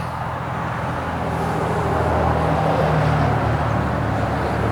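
A motor vehicle's engine running, growing louder over the first couple of seconds as it approaches, over a steady rush of road and wind noise.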